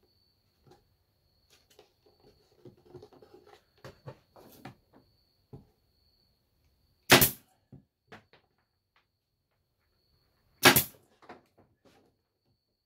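Pneumatic stapler firing twice, about three and a half seconds apart, each shot a single sharp crack as it tacks a pallet-wood panel into a cabinet door frame. Lighter knocks of the wood boards being handled come before the first shot.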